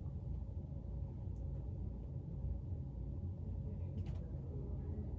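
Steady low background rumble of room tone, with a few faint clicks about four seconds in.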